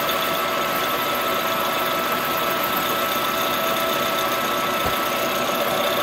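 Colchester Master engine lathe running steadily, turning a Farmertec 288 chainsaw cylinder on a slow, light cleanup cut. It makes an even machine noise with two held tones through it.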